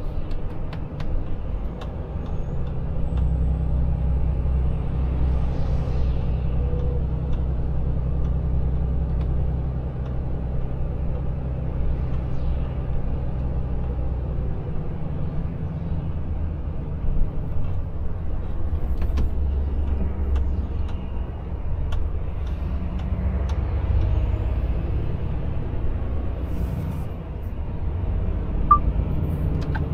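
Volvo FH Aero truck engine running under way, heard inside the cab as a steady low drone, with its pitch shifting about halfway through.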